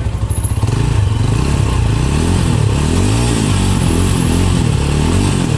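Rusi Sigma SS250 motorcycle engine running through its stock exhaust, getting louder about a second in, then revved up and down several times in a row.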